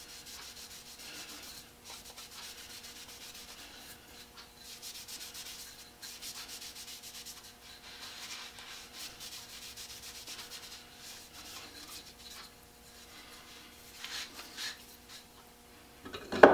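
Cloth rubbing paste wax into a wooden saw handle: soft, uneven rubbing over a faint steady hum. It ends with one sharp knock as the handle is set onto its wooden stand.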